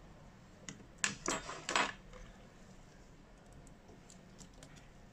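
Small tools and parts being handled during a phone repair: a quick run of sharp clicks and metallic rattling from about one to two seconds in, followed by a few faint ticks.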